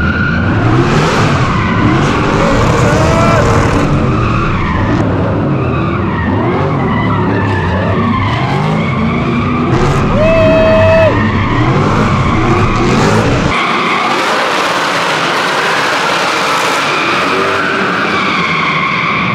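Drift car's engine revving up and down hard while the tyres skid, with a short high tyre squeal about ten seconds in; the deep engine rumble falls away a few seconds after that.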